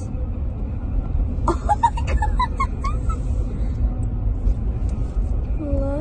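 Low, steady rumble of a car heard from inside the cabin. About one and a half seconds in, a short run of high, rising chirp-like notes sounds over it for under two seconds.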